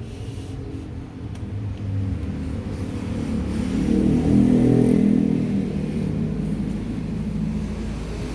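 Low engine and road rumble of a motor vehicle, swelling about four seconds in and easing off again.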